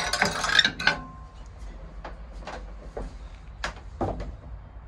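The metal cover plate on a steam locomotive's firebox door is swung open by hand: a loud metal scrape and clank in the first second ending in a brief ring, then a few lighter metallic knocks.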